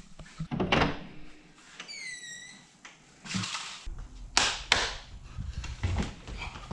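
Back door being opened: handle and latch clicks, then a brief falling squeak about two seconds in. From about four seconds there is a low rumble of wind on the microphone outdoors, with a couple of knocks.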